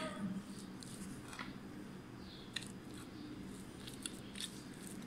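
A fork stirring shredded chicken and chopped boiled egg in a glass baking dish: faint soft squishing with a few light clicks of the fork against the glass.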